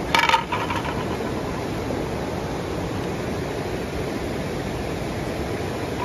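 A metal spoon clinks a few times against a metal camping pot, with a brief ring, right at the start. A waterfall rushes steadily underneath.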